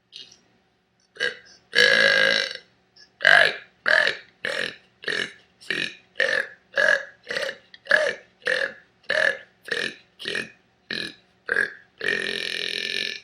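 A woman burping: one long burp about two seconds in, then a quick string of about fifteen short burps, nearly two a second, and a final long, drawn-out burp near the end.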